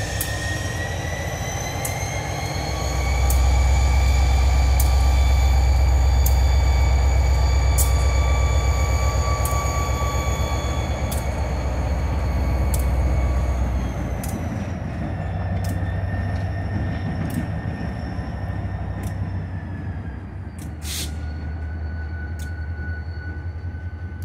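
Diesel-electric locomotive NYSW 3618 running light and pulling away. Its engine throttles up about three seconds in with a deep rumble and a rising whine, then eases off near the middle, with scattered sharp clicks from the moving locomotive.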